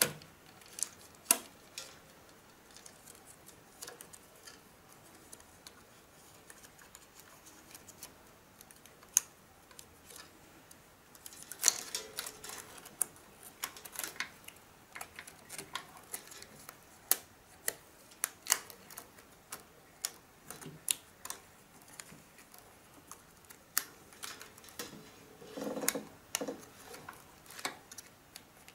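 Irregular small clicks and rattles as 16mm film is threaded by hand through a 1945 Optikotechna Opefon projector, its film gate and sprocket roller guides being opened and closed. A busier cluster of clicks comes about twelve seconds in and again near the end; the projector's motor is not running.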